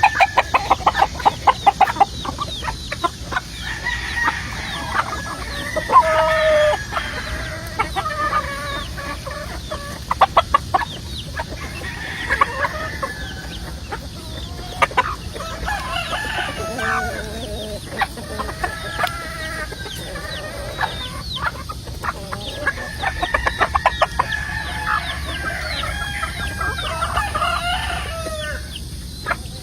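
Several roosters crowing one after another over a flock of chickens clucking, with runs of quick sharp clucks.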